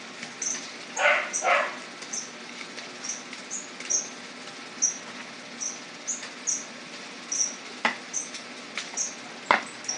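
Short high-pitched squeaks repeating about once or twice a second. Two brief scraping sounds come about a second in, and two sharp knocks near the end.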